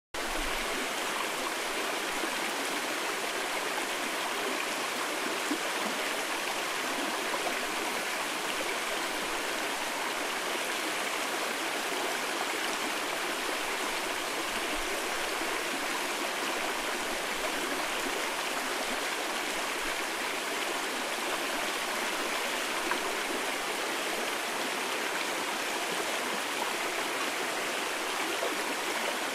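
Mountain stream rushing over rocks in a steady, unbroken flow.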